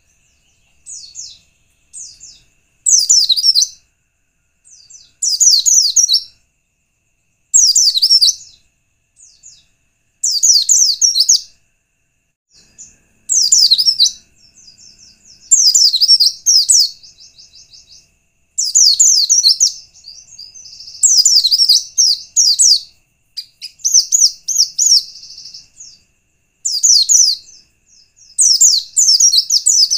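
White-eye (pleci) singing in rapid twittering phrases of about a second each, repeated every two to three seconds with softer short chirps between. This is the kind of lure song played to set other white-eyes singing.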